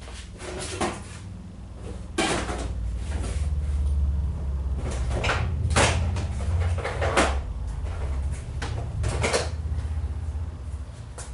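Clicks, knocks and scrapes from handling the switch and housing parts of a cordless rotary hammer that is being taken apart, about half a dozen separate knocks over a steady low hum.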